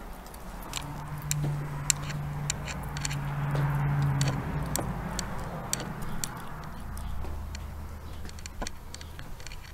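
Footsteps and small clicks and crunches of debris and handling as someone walks through an empty room, over a low steady hum that comes in about a second in, fades near the middle, and returns lower in pitch later.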